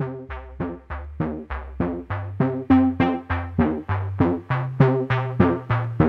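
Background music: a melody of short notes that die away quickly, about three a second, over a low bass line.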